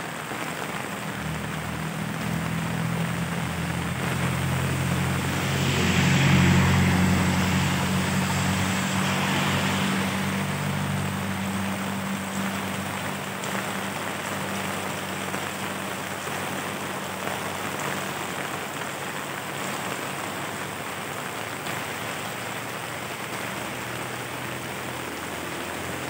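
Steady heavy rain on a street, with a vehicle driving past on the wet road. Its engine builds over the first few seconds, is loudest about six seconds in with the hiss of tyres through water, and fades out by about fourteen seconds.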